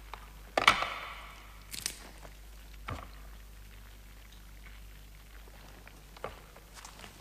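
A few scattered knocks and clacks. The loudest comes about half a second in and rings briefly; sharper clicks and duller knocks follow a few seconds apart.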